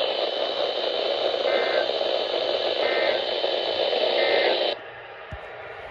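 Emergency Alert System end-of-message code coming through a radio over steady static hiss: three short digital data bursts about 1.3 seconds apart, marking the end of the weather alert. The static cuts off suddenly near the end.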